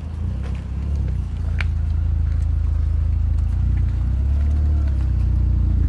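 A motor vehicle's engine running with a steady low rumble that grows louder over the first two seconds, with a couple of faint clicks.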